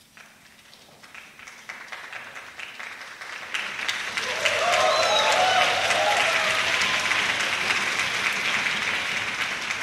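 Audience applause at the end of a piece: scattered claps start right away and build over about four seconds into full, steady applause. A few voices call out near the middle.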